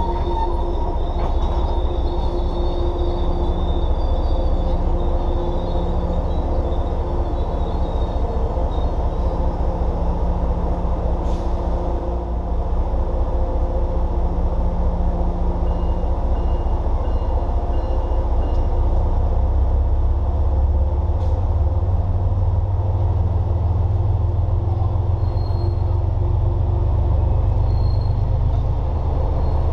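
Passenger train of bilevel coaches rolling past: a steady, loud rumble of wheels on the rails with faint humming tones over it, the low rumble growing heavier in the second half.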